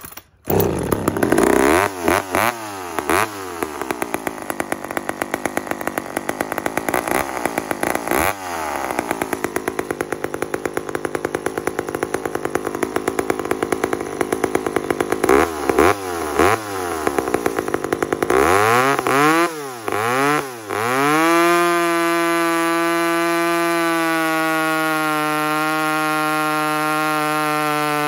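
Two-stroke chainsaw revving up and down several times, then held at steady full throttle for the last several seconds as it cuts through a hardwood log with a freshly sharpened chain.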